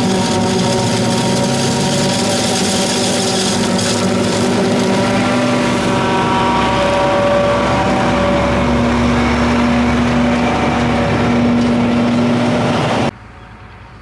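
Self-propelled forage harvester chopping standing corn for silage and blowing it into a truck alongside: a loud, steady machine drone with several held tones. It drops suddenly to a much fainter level near the end.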